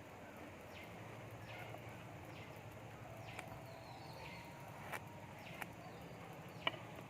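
Short, high calls that fall in pitch, repeating about once a second over a faint outdoor hiss. A few sharp clicks come in the second half, the loudest near the end.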